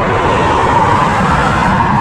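Twin-engine widebody jet airliner on final approach with its landing gear down, its engines making a loud, steady rushing noise as it comes in low toward the runway.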